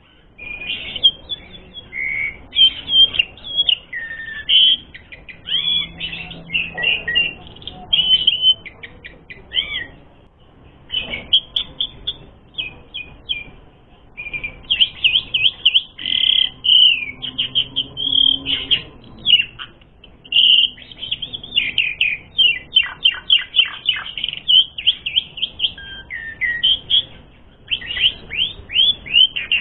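Asian pied starling (jalak suren) singing at length in rapid, varied phrases of whistles, chirps and quick sweeping notes, with brief pauses about ten, fourteen and twenty-six seconds in.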